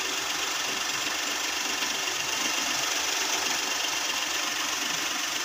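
Perodua Viva's engine idling steadily, with a steady hiss over it.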